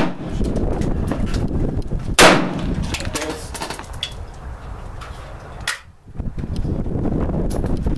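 A single 9mm shot from an FMK 9C pistol about two seconds in, a sharp crack with a short ringing tail. A fainter sharp crack follows near six seconds, over steady low background noise.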